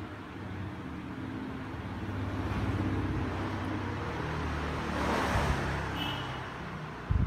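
Steady low rumble of road traffic, swelling as a vehicle passes about five seconds in; a short thump near the end.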